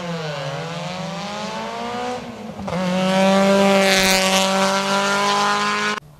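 Group CN sports-prototype race car engine at high revs: the pitch sags and climbs again, breaks off briefly about two and a half seconds in, then holds a loud, high, steady pull that cuts off suddenly near the end.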